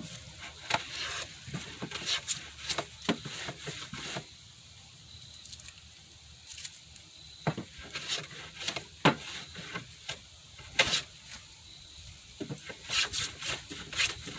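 Wooden rails being handled on a workbench: irregular knocks and short rubbing scrapes of wood against wood.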